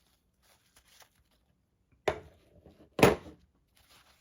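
Two sharp knocks about a second apart, the first with a short rattle after it, as knife parts, tools or the cleaner bottle are handled on a hard work surface during the knife's disassembly and cleaning.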